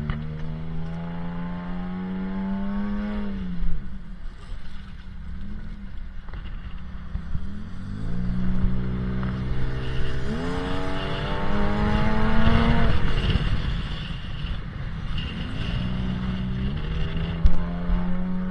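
Four-wheel-drive truck engine pulling along a stony beach track, its pitch climbing as it accelerates and falling away as it eases off, several times over. A couple of short knocks come from the truck jolting over the stones.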